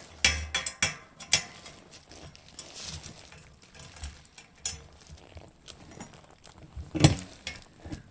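Scattered metallic clinks and knocks of tools and bicycle fork parts being handled, several in the first second or so and a louder knock about seven seconds in.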